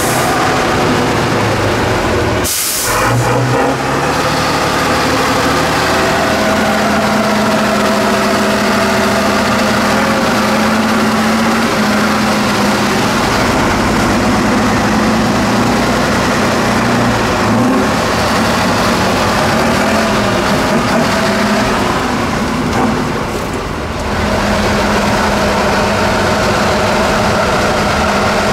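Tatra 813 8x8 truck's diesel engine running under load as the truck crawls through rough off-road ground, its pitch rising and falling with the throttle. A short, sharp hiss comes about two and a half seconds in, and the engine eases off briefly near the end.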